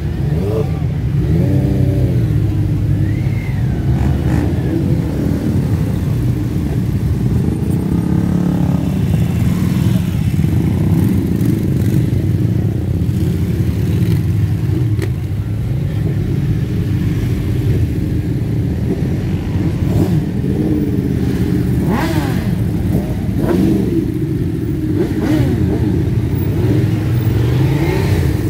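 Many motorcycle engines of mixed types running together in a loud, steady rumble as a dense column of bikes rides slowly past, with individual bikes revving up and down now and then.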